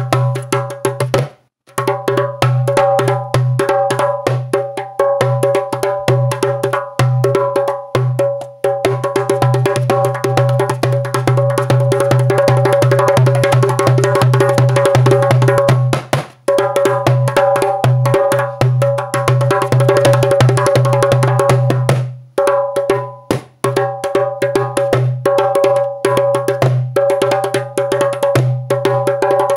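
Djembé and tam-tam drums played loudly in fast, dense rolls, each stroke ringing at a steady pitch. The beating stops for a moment about a second and a half in, and again briefly near the middle and about two-thirds of the way through.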